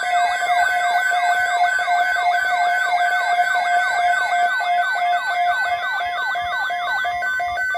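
Electronic siren wailing in a fast repeating pattern, about three quick falling sweeps a second over a steady tone. It cuts off suddenly near the end.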